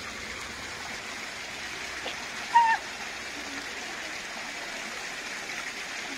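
Steady rushing noise, with one short, high, pitched call about two and a half seconds in that is the loudest sound.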